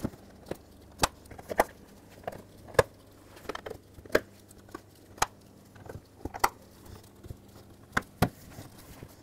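Plastic push clips being pressed one after another into a plastic radiator support cover: about a dozen sharp clicks and snaps at irregular intervals.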